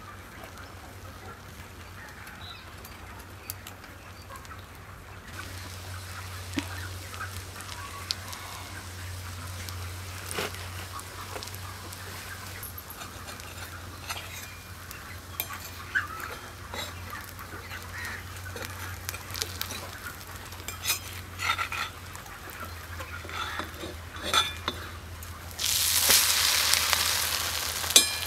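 Bread omelette frying in an oiled iron pan, with a spoon and spatula now and then tapping and scraping the pan over a low steady hum. About 26 seconds in, a loud sizzle breaks out as the omelette is turned onto the hot pan.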